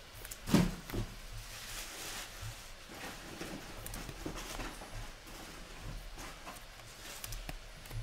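A foil pack of 2021-22 Upper Deck Extended Series hockey cards being torn open and the cards slid out and handled, with rustling and small clicks. A single thump about half a second in is the loudest sound.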